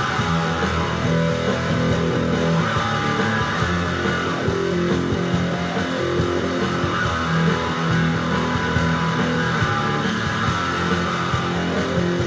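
Instrumental rock music with electric guitar and bass, played steadily with no vocals.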